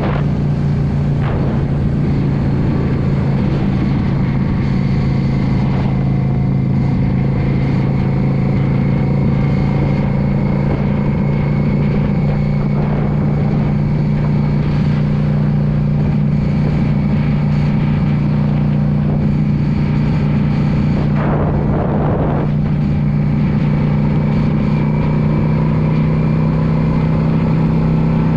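2016 Yamaha V Star 650 Custom's air-cooled V-twin engine running at a steady cruising speed, its low pitch holding nearly constant. A brief whoosh of noise rises over it about three-quarters of the way through.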